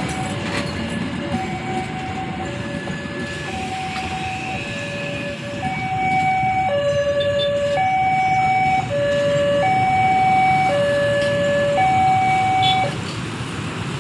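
Railway level-crossing warning alarm sounding its alternating two-tone signal, a high and a low tone of about half a second each in steady turn, getting louder about six seconds in and cutting off near the end. A low rumble runs underneath.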